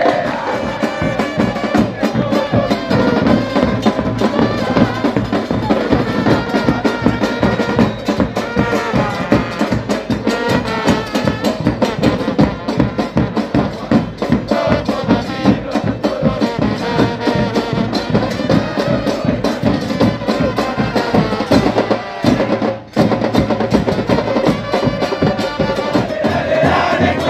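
Football supporters' band playing in the stands: drums beat a fast, steady rhythm under brass and singing voices, with a brief break near the end.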